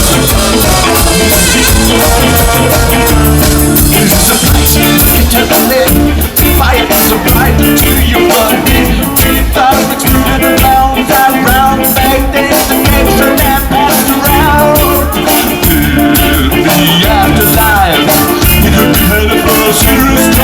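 Ska band playing live and loud: drums and bass keep a steady driving beat while melodic lines play over it.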